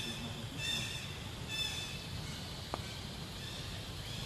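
Short high-pitched animal calls repeated three times, about one every 0.8 seconds, in the first two seconds, over a steady low rumble. There is a single faint click a little before three seconds in.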